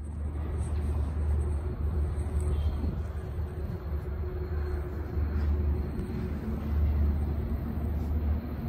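Outdoor ambience: a steady low rumble that swells and fades unevenly, with an even haze of distant traffic noise above it. No train is passing.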